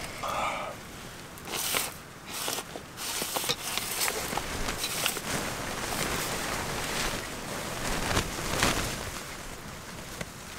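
Rustling and crackling inside a fabric photo blind, with scattered sharp clicks.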